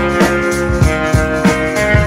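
Background music with sustained pitched notes over a steady beat of about three beats a second.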